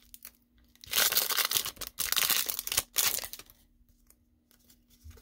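Foil booster-pack wrapper crinkling and tearing as the Pokémon cards are pulled out of it, in loud bursts for about two seconds starting about a second in.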